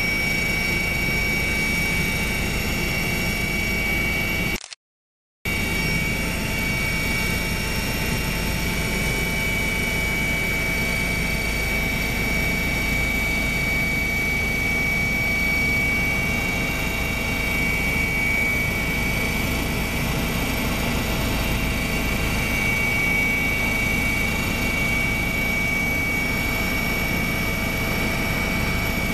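Helicopter in flight heard from on board: a steady engine and rotor din with a constant high whine running through it. The sound cuts out completely for under a second about five seconds in, then comes back unchanged.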